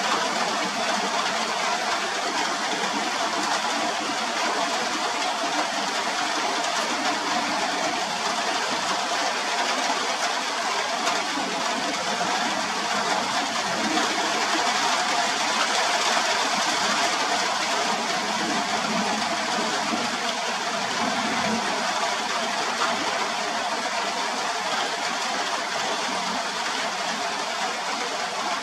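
Steady rain falling, a dense, even patter that holds at the same level throughout.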